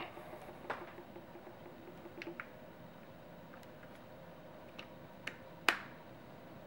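Scattered light clicks and taps from a hand handling a Medisana humidifier, then a sharper click about five and a half seconds in as the unit is switched on.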